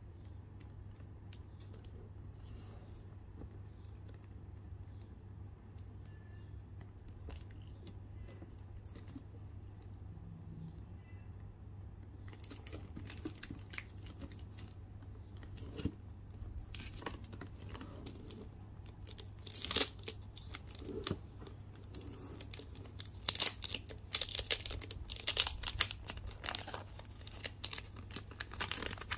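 Clear plastic wrapping on a perfume box crinkling and crackling as hands work it loose and peel it off. It starts about twelve seconds in and gets louder and denser toward the end, over a steady low hum.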